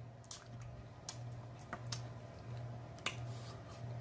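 Close-miked chewing of a jalapeño pepper: wet mouth sounds with a few sharp crunches and clicks about a second apart, over a low steady hum.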